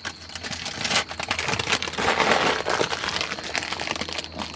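An old chip packet crinkling as it is handled, with a run of sharp clicks from the washers and loose nuts and bolts inside it; the crinkling is loudest between about one and a half and three and a half seconds in.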